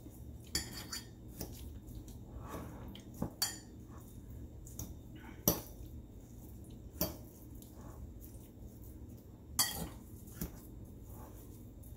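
A fork clinking and scraping against a mixing bowl as it stirs a ground-turkey meatloaf mixture, in irregular taps with a few sharper clinks.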